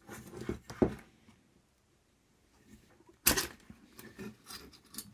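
Small clicks and ticks of car wiring and bullet connectors being handled and fitted together on a workbench, with the sharpest click about three seconds in.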